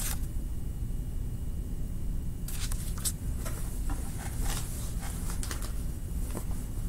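Drawing tool scratching on paper in quick strokes, starting about two and a half seconds in, over a steady low hum.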